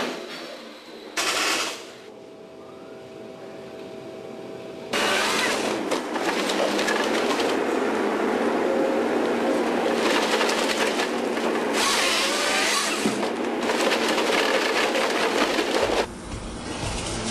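Lako forestry harvesting head working a tree, a dense rattling and crackling from about five seconds in that stops suddenly near the end.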